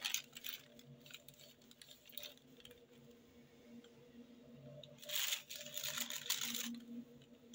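Thin plastic carrier bag crinkling in short faint rustles as a cat shifts inside it, with a longer run of rustling about five seconds in.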